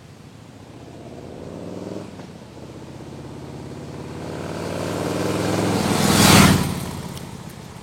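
Harley-Davidson Softail Slim S V-twin with a Kesstech ESM3 exhaust accelerating past in a drive-by. Its pitch climbs, drops briefly about two seconds in as it shifts up, then climbs again. It is loudest about six seconds in as it passes, then fades away.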